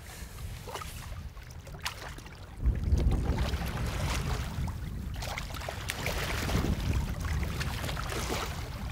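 Splashing in shallow river water as a hand-held Arctic char thrashes at the surface, with wind rumbling on the microphone from about three seconds in.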